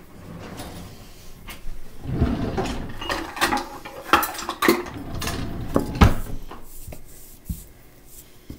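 Clinks and knocks of kitchen utensils being handled and set down on the counter, among them a metal measuring cup, while shortening is scooped from its can. The knocks are scattered and irregular, the loudest about six seconds in, and they thin out near the end.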